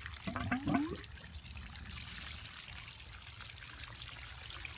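Water spraying and splashing out of the open PVC cleanout ends of a septic field's pressure laterals, a steady hiss, as the lines are flushed to clear soil particles and debris from the piping.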